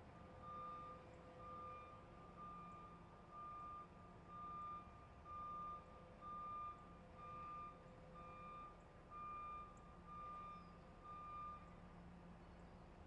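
A vehicle's reversing alarm beeping faintly, about one beep a second, about a dozen beeps that stop near the end, over a low steady hum.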